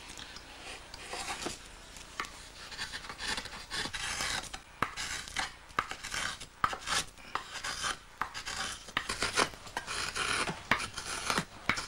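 A blade scraping and cutting along the rim of a lacquered cloth-and-washi vessel shell, trimming its edge: a run of irregular rasping strokes with sharp clicks.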